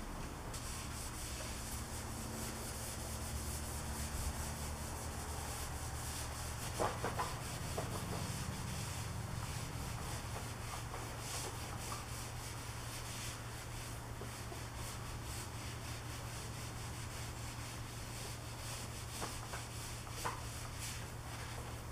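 Microfibre cloth rubbing over the inside barrel of an alloy wheel in repeated wiping strokes. There are a few light taps about 7 seconds in and again near the end.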